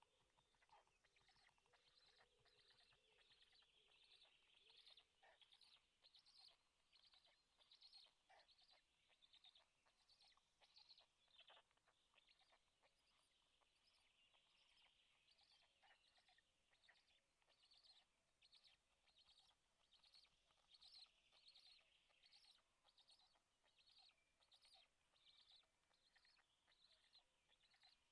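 Faint wild songbirds singing, a dense stream of quick high chirps and notes, several a second.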